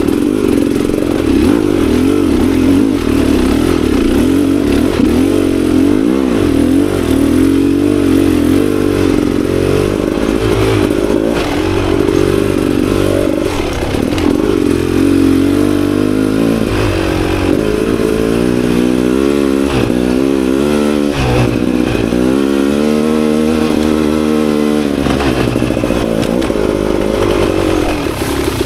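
Beta Xtrainer 300 two-stroke dirt bike engine running under load as it is ridden. Its pitch rises and falls again and again with the throttle, with the clearest rises and falls in the second half.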